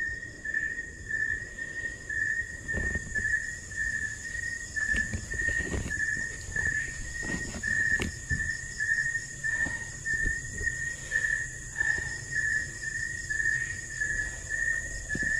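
Night insects calling: a chirp repeating a little over twice a second over a steady high-pitched buzz, with a few soft knocks.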